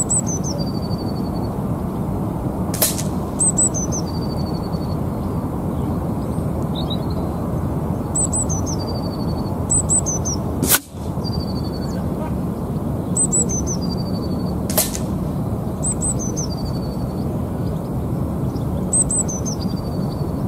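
Three sharp cracks from a sub-12 ft-lb pre-charged pneumatic air rifle firing: about three seconds in, near eleven seconds and near fifteen seconds. Between the shots a songbird repeats a short song every few seconds over a steady low rumble of wind.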